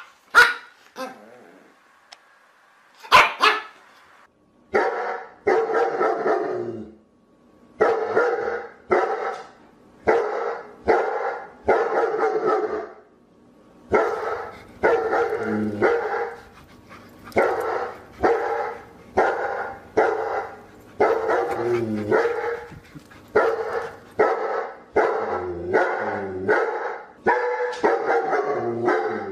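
A dog barking over and over: a couple of sharp barks in the first few seconds, then from about five seconds in a steady run of barks, roughly one a second.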